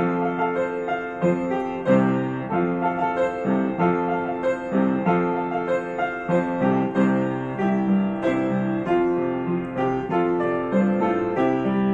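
Upright piano played with both hands: a Chinese New Year song, a melody in the right hand over a steady rhythm of low chords in the left.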